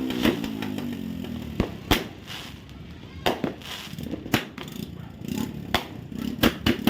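Fireworks and firecrackers going off: sharp bangs at irregular intervals, some in quick pairs, as background music fades out in the first second and a half.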